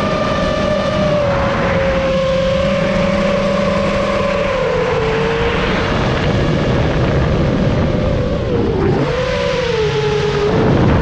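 FPV quadcopter's motors and propellers whining, the pitch drifting slowly lower, then dipping and climbing back near the end as the throttle changes, over a steady rush of propeller wash and air noise.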